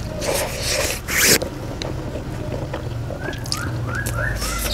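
Eating a mouthful of Chappaghetti black-bean instant noodles: wet slurping and chewing, with one loud slurp about a second in. Short rising chirps repeat in the background from about three seconds in.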